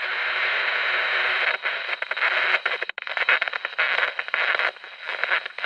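Crackling, rustling noise of packaging being handled and unwrapped, with many small irregular crackles and a brief break about three seconds in.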